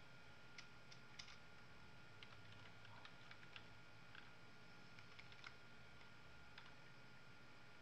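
Faint, irregular clicks of computer keys being pressed, over a faint steady high tone that stops near the end.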